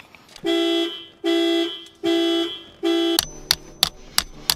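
Four evenly spaced, steady-pitched beeps like a car alarm, each about half a second long. Just after three seconds in, a 16 oz claw hammer starts tapping a star drill bit used as a punch on an aluminium gas pedal, about three sharp taps a second, to widen the pedal's pin hole.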